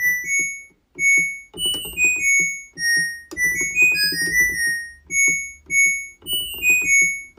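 Background music: a bright synthesizer or electric-piano melody of short notes over a steady pulsing beat.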